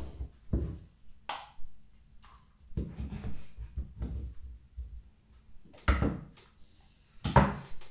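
A metal spoon scraping and knocking inside a tin of canned dog food, then the chunks tipped out of the tin and landing in a plastic bowl. The sound is a run of short knocks and taps, the loudest about six seconds in and another near the end.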